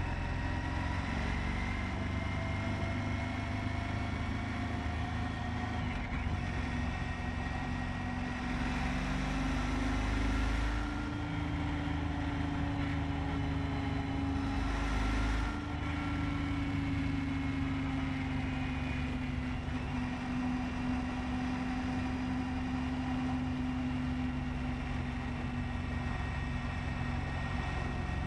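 Honda ST1300 Pan European motorcycle's V4 engine running at road speed. Its note climbs over the first ten seconds or so as the bike speeds up, then eases off slightly. Wind buffets the microphone in two louder gusts, about ten and fifteen seconds in.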